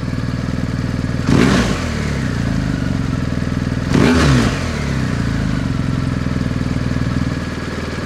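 BMW GS Adventure boxer twin with a Jekill & Hyde exhaust on a de-catted header, valve fully open, idling steadily. The throttle is blipped twice, about a second in and again about four seconds in, the revs rising sharply and falling back to idle each time.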